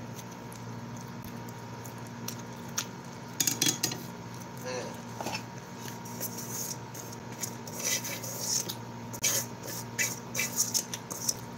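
Eating by hand from a steel plate: wet chewing and mouth smacks with scattered small clicks of fingers and food against steel, over a steady low hum.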